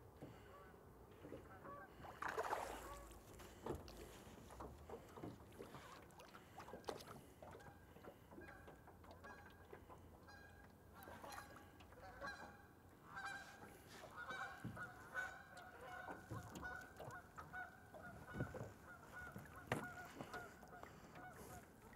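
Geese honking faintly in a long repeated series, thickest in the second half. A few short splashes break in as a hooked largemouth bass is brought to the side of the boat and lifted out.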